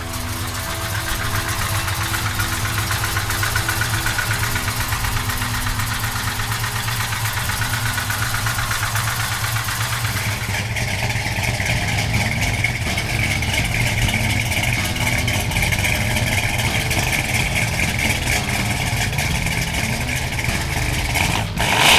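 Dodge Charger Super Bee's big-block V8 idling with a steady, pulsing low rumble.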